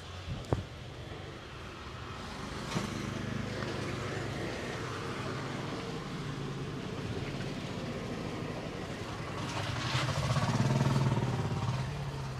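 Road traffic: a motor vehicle's engine hums steadily, grows louder and passes close about ten seconds in, then fades. A single sharp click about half a second in.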